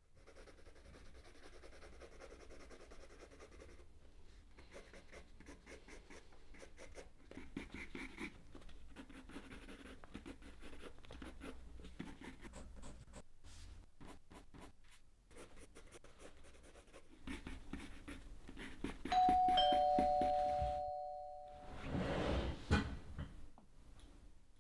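Pencil scratching on paper in quick, uneven strokes. About 19 s in, a two-tone doorbell chime sounds, a higher tone and then a lower one ringing together and fading away over a couple of seconds. A louder scraping, rustling noise follows.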